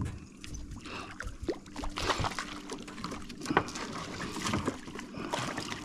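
Scattered light knocks and clunks of gear being handled on a small boat's hull and deck, over the low wash of water lapping against the boat.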